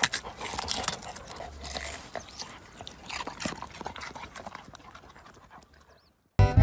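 A dog nosing and digging in dry soil and leafy greens around a white radish: irregular rustling, scraping and crackling that fades out about six seconds in. Music starts just before the end.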